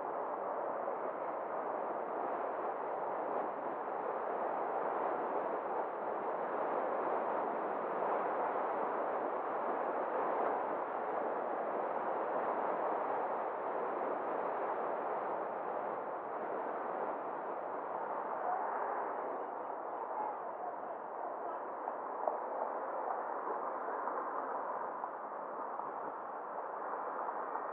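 Steady rushing noise of a car on the move: tyre and wind noise, with one small click near the end.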